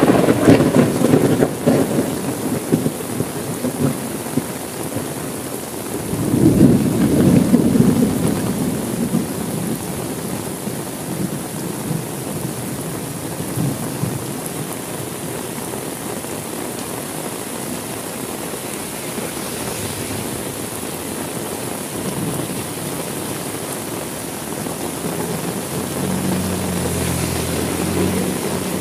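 Heavy rain falling steadily through a thunderstorm. A thunderclap dies away in the first couple of seconds, and a second roll of thunder rumbles up about six seconds in and fades.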